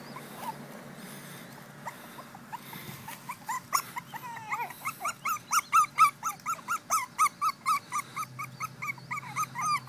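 Pekingese puppies whining: quick, high, repeated cries, about four a second, that start about three seconds in and grow louder.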